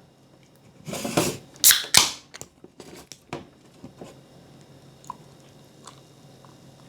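A few short rustling, scraping noises about a second in, then light scattered clicks and taps of things being handled in a kitchen.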